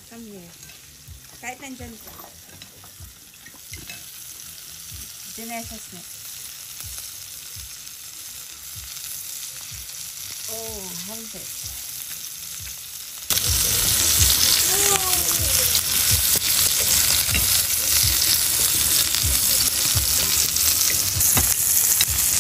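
Steak frying in oil with garlic cloves in a pan on a portable gas stove, a steady sizzle. The sizzle builds gradually, then jumps suddenly much louder about thirteen seconds in.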